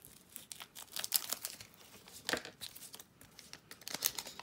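Foil booster-pack wrapper crinkling and trading cards rustling as they are handled, in a few short crackly spells with quieter gaps between.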